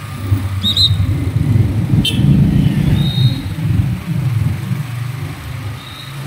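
Motorcycle running at low speed on a wet road, a steady low rumble of engine and wind on the microphone. There are a few brief high-pitched squeaks, and a sharp click about two seconds in.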